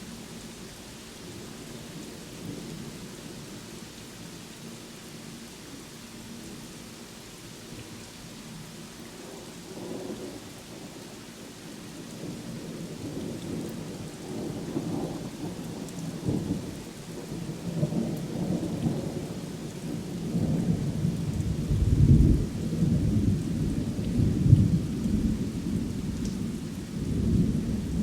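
Steady rain with thunder: the rain falls evenly at first, then a long rolling thunder rumble builds from about halfway in, with the heaviest low booms a few seconds before the end.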